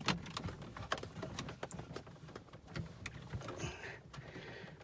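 Irregular light clicks and small knocks of hard plastic being handled: a dashboard trim section and the wiring plug of its indicator relay being worked loose by hand.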